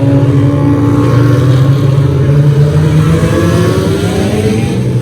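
Race car engine running under power, its note dropping off early and then climbing steadily through the second half as it accelerates.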